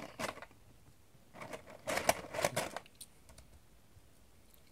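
Light clicking and rattling of small plastic miniatures and their packaging being handled, in short clusters: a brief one at the start and a longer one around two seconds in, with a few faint ticks after.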